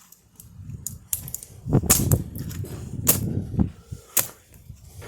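A dishwasher being smashed: a few light clicks, then sharp, loud cracking hits about two, three and four seconds in, with low rumbling between them.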